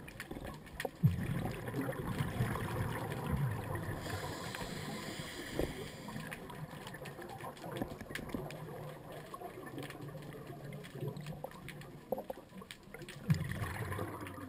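Underwater bubbling and gurgling with scattered faint clicks. A strong low rumbling swell comes about a second in and another near the end.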